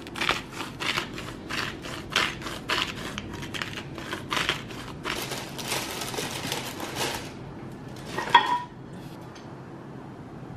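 Hand-twisted spice grinder grinding seasoning: a run of quick, crunchy grinding strokes, several a second, that stops after about seven seconds. About a second later comes a single loud, ringing clink of something hard set down.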